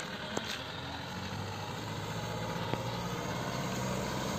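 Hino Dutro light truck's diesel engine running as the truck drives closer, a low steady drone that grows gradually louder as it nears.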